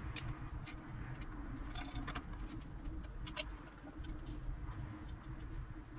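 Scattered light clicks and knocks as metal stand parts are handled and set down on a metal workbench.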